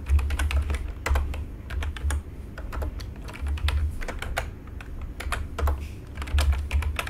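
Computer keyboard typing: irregular runs of key clicks as a line of code is entered, over a low hum that swells and fades.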